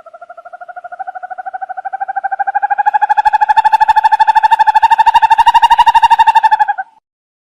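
An owl's long trill: a rapid run of about a dozen notes a second, all on one pitch. It swells louder over the first few seconds, rises slightly in pitch, then stops abruptly.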